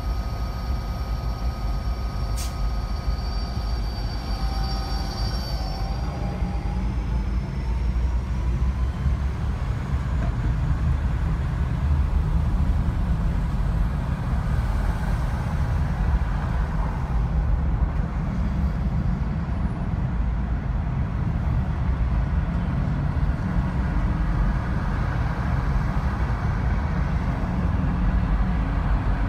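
Steady low rumble of a car driving in slow city traffic. In the first seconds a high steady whine rises in pitch and fades out about six seconds in as an articulated bus pulls away alongside; a single sharp click about two seconds in.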